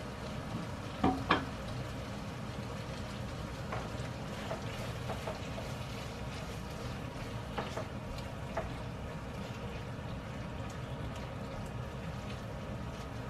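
Tomato-sauce pasta sizzling and simmering in a hot frying pan while a spatula stirs and tosses it, with a few light knocks of the spatula against the pan, two of them about a second in.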